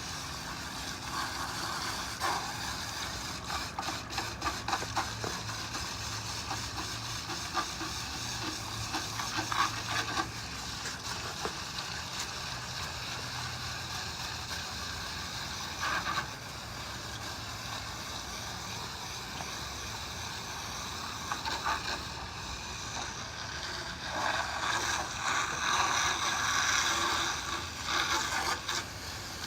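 Hose water spraying through the fins of an HVAC condenser coil, rinsing off loose debris: a steady hiss that grows louder near the end, with a few knocks along the way.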